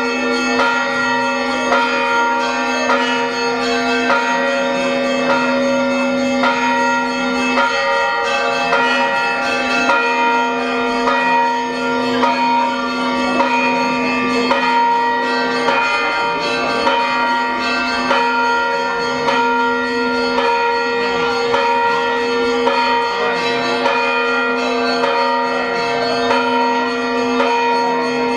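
Orthodox church bells ringing a continuous peal: strikes follow one another every fraction of a second, and each tone rings on and overlaps the next.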